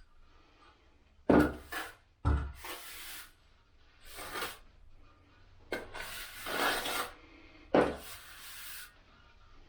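Steel finishing trowels scraping and smoothing stiff mortar on a shower curb: four scraping strokes, each starting with a sharp knock as the trowel meets the curb, the longest a little past halfway through.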